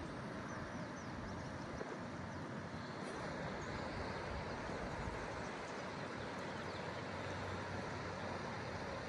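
River water running over rocks: a steady, even rush.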